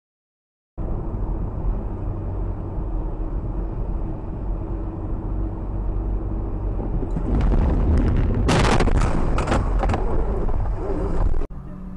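Steady rumble of a moving vehicle's engine and road noise, starting abruptly about a second in. About eight and a half seconds in come several sharp bangs and crunches over about a second and a half, typical of a vehicle collision.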